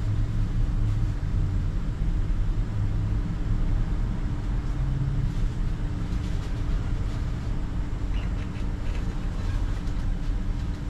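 Steady low rumble and hum of an idling car, heard from inside the cabin. A few faint clicks come near the end.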